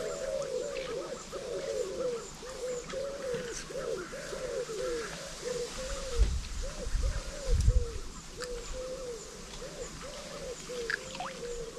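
Rapid, unbroken series of short hooting animal calls, each rising then falling in pitch, about three a second. A brief low rumble comes about six to eight seconds in.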